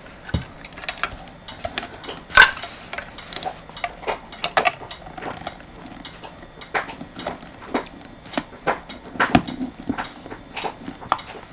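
Irregular clicks and knocks of hard plastic as an electric blanket controller's circuit board is handled and fitted back into its plastic case, the loudest knock about two seconds in.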